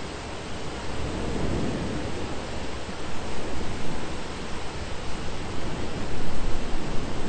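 Thunderstorm rain, a continuous even hiss, with a low swell about a second and a half in.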